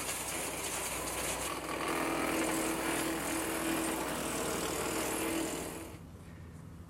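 15-horsepower engine of a chipper shredder mulcher running steadily. The sound drops away sharply about six seconds in.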